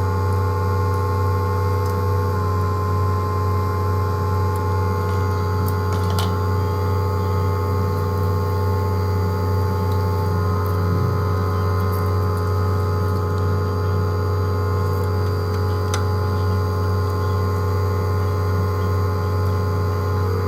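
Steady low electrical hum, with several steady higher tones over it and a few faint clicks.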